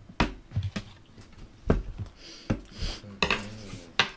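Tableware clattering on a table: about six sharp knocks and clinks of dishes and utensils, with some rustling between them.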